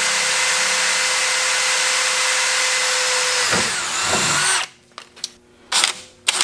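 Kobalt XTR cordless drill running flat out, a 3/16-inch bit boring through galvanized steel pipe. About three and a half seconds in, its pitch drops as it winds down and stops, and a few sharp knocks follow.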